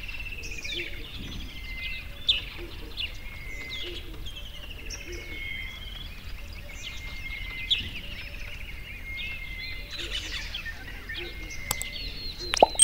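Several songbirds chirping and singing in short whistled phrases, one after another, over a steady low background hiss. A sharp click comes near the end.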